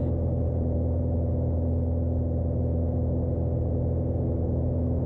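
Single-engine Cessna's piston engine and propeller at takeoff-climb power, heard inside the cockpit: a steady drone with even, unchanging tones, the airplane climbing out heavily loaded.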